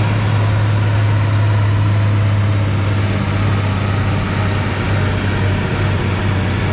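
Tractor engine running steadily at a constant speed, a deep even drone.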